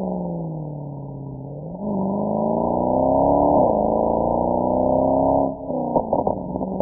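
Mercedes-AMG SL63's V8 exhaust: the engine note falls as the car coasts, then the car accelerates hard from about two seconds in, the pitch rising with a brief dip at a gear change. On lifting off near the end the exhaust pops and crackles several times.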